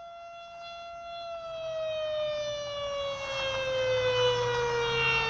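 Outdoor tornado warning siren wailing: one steady tone that holds, then slowly falls in pitch, growing louder throughout, over a low steady hum.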